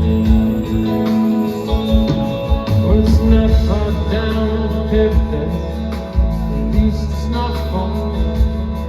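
Live soft-rock band with guitar, bass and keyboards, and a male lead voice that comes in singing about three seconds in.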